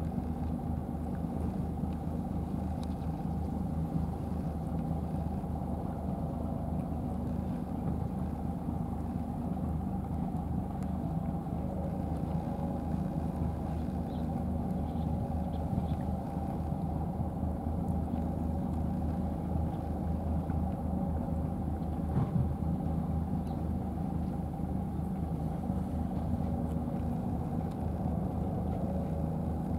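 An engine idling steadily, a constant low hum, with one short knock about two-thirds of the way through.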